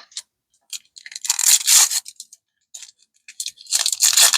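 Plastic wrapping around a pack of trading cards crinkling and tearing as it is opened, in two bursts, with small clicks and taps of the packaging in between.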